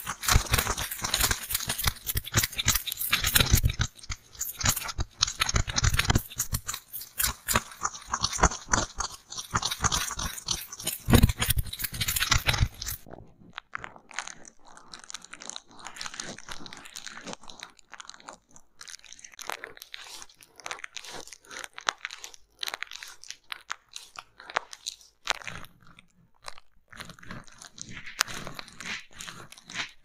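Close-miked goose-feather ear-pick stick rubbing and scratching in the hole of a styrofoam mock ear, a dense crunchy crackling. About 13 seconds in it gives way to quieter, scattered taps and scrapes of a cotton swab on a plastic sheet over bubble wrap.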